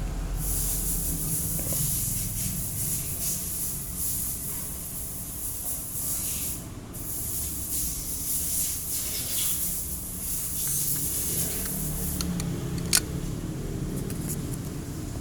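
Motor scooter running, with a steady hiss of wind and road noise over the low engine sound, and a single sharp click near the end.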